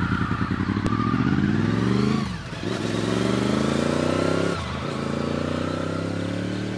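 Honda VFR V4 motorcycle with an aftermarket Beowulf exhaust accelerating past, its engine note climbing in pitch and dropping briefly twice as it shifts up, then running at a steadier, slightly quieter pitch.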